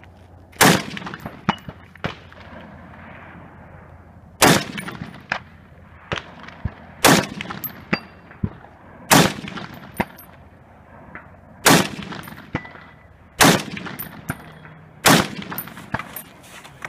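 Rifle fired from the prone position: seven loud shots spaced about two to two and a half seconds apart, with fainter sharp cracks following most of them.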